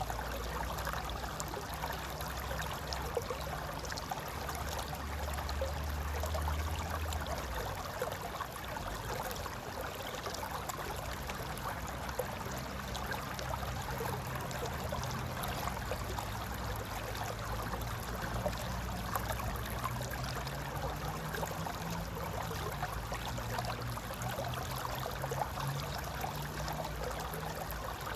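Mountain river flowing, a steady, even rush of water with a gurgle.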